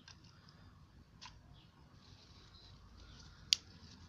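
Paprika potato chips burning as tinder, giving off a few sharp crackling pops over a faint hiss; the loudest pop comes about three and a half seconds in.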